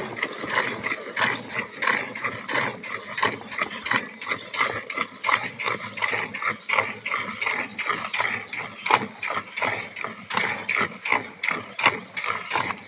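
Milk squirting from a Holstein Friesian cow's teats into a steel bucket of foamy milk during hand-milking, a steady rhythm of squirts, about two or three a second.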